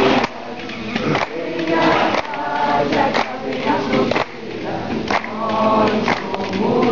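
A group of people singing together in a ceremonial chant, with a sharp beat about once a second under the voices.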